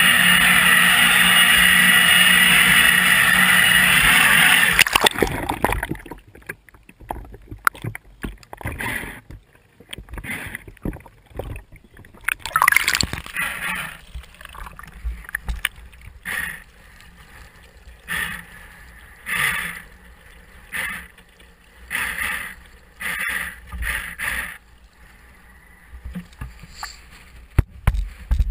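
A loud steady rush for about five seconds, then a sudden drop as the radio-controlled model tug capsizes. Water gurgles and sloshes around the overturned hull in short splashes about every second and a half.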